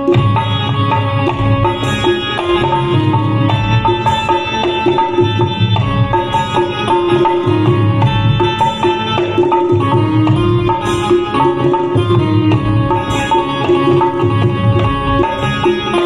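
Instrumental music: a Roland XPS-10 keyboard plays a melody of held notes over a dholak, a two-headed barrel drum, beating a steady rhythm.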